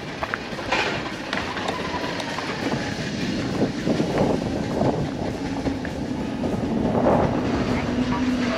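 Bicycle towing a dog trailer rolling downhill over rough lanes, a continuous irregular rattling rumble; a faint brake squeal sounds near the end.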